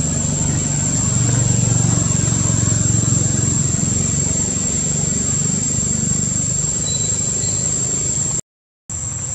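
Outdoor ambience: a steady high-pitched insect drone over a low engine rumble. The sound cuts out for about half a second near the end.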